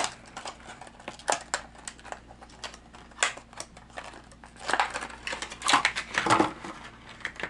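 Plastic lure packaging being opened by hand: irregular crinkling and clicking of stiff plastic, with a few louder snaps, as a hollow-body frog lure is worked out of its box.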